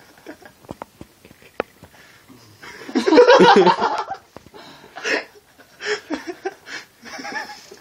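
Small clicks of gulping water from a glass, then a loud burst of laughter about three seconds in, followed by shorter laughs.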